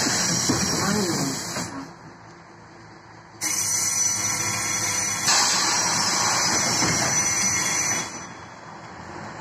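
Compressed air hissing from an Ikarus 280 bus's air system, in two loud bursts: a short one at the start and a longer one of about four and a half seconds beginning about three and a half seconds in. The second burst gets louder partway through, and a low engine rumble runs beneath.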